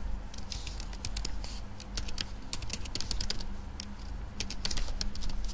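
Typing on a computer keyboard: a quick, uneven run of keystroke clicks as a short name is typed in.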